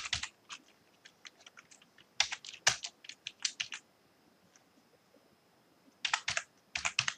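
Typing on a computer keyboard: short runs of keystrokes, then a pause of about two seconds before a last quick run near the end.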